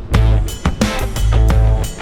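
Background music starting suddenly, loud, with a strong bass line, a steady drum beat and guitar.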